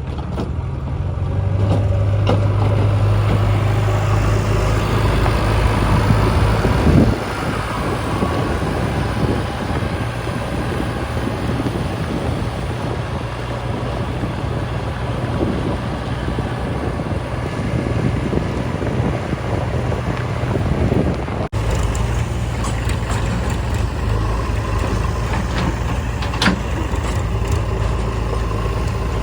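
Heavy diesel engine working. It runs harder for the first several seconds, drops back about seven seconds in, then runs on steadily, with a few knocks in the later part.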